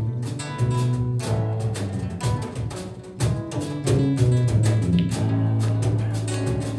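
Live instrumental trio playing: electric bass guitar holding low notes, acoustic guitar, and hand drum with cymbals keeping a steady beat.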